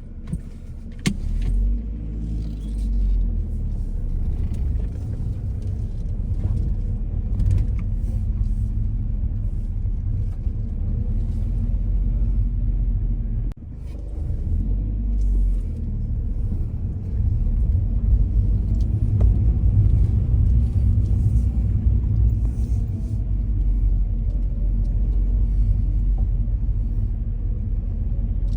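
An early-2000s Ford Focus being driven, with a steady low engine and road rumble. There is a sharp click about a second in and a brief dip about halfway, and the rumble is a little louder in the second half.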